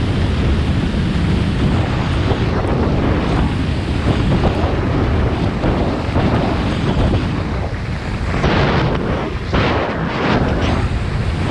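Wind rushing and buffeting over an action camera's microphone during fast skiing, with skis hissing and scraping over packed snow. The higher hiss grows stronger and comes in surges about three-quarters of the way through.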